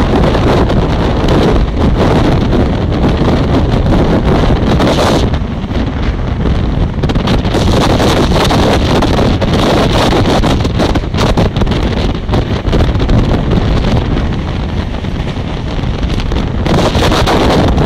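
Wind buffeting the microphone held out of a coach of a fast-running express train, over the train's running noise. A loud, steady rush that turns hissier for a moment about four seconds in and again near the end.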